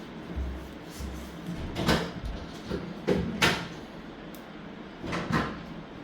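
Handling noises: a few short knocks and scrapes. The loudest come about two and three and a half seconds in, and a pair just after five seconds, with dull low thumps in the first second.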